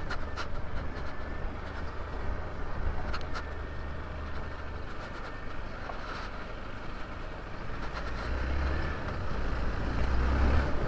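Hero Xpulse motorcycle riding, its engine running under a heavy low rumble, with a few sharp knocks along the way. It gets louder over the last few seconds.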